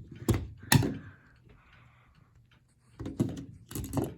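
Plastic knocks and clicks of a battery being fitted into a smoke detector's battery compartment: two sharp knocks in the first second, a pause, then a cluster of clicks near the end.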